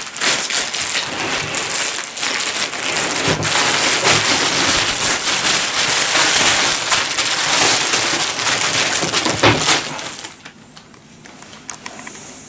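Clear plastic wrapping rustling and crinkling loudly as it is pulled off a folded camping table, dying down about ten seconds in.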